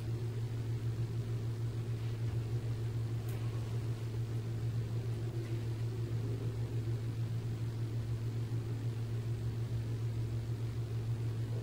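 Steady low machine hum, unchanging throughout, with one faint click about three seconds in.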